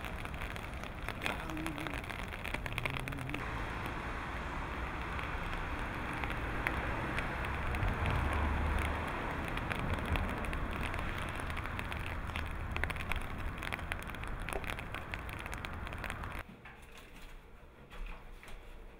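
Steady outdoor street noise, a hiss with a low rumble that swells for a few seconds about eight seconds in. It cuts to a much quieter indoor hush about sixteen seconds in, with a few soft footsteps near the end.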